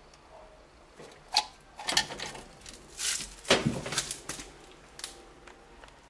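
A washing machine's power plug being pulled from a wall socket and handled: a series of sharp clicks and knocks, the loudest about a second and a half in and again about three and a half seconds in.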